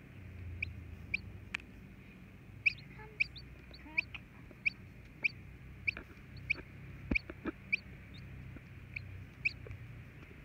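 Hatching chick peeping from inside its cracked egg: short, high chirps falling in pitch, about two a second. A few soft knocks come around the middle.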